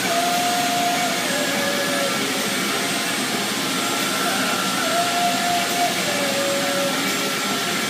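Industrial machinery running with a steady rushing, blower-like noise. A pair of held tones, a higher one then a lower one, recurs about every four and a half seconds.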